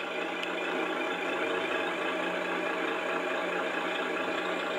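ESS-One sound module playing a simulated truck engine idling steadily through the small onboard speaker of a Tamiya 1850L RC truck.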